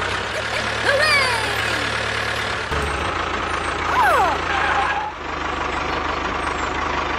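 Tractor engine sound effect running steadily, its low hum changing at the scene cuts. Short high-pitched voice exclamations that slide in pitch come about a second in and again about four seconds in.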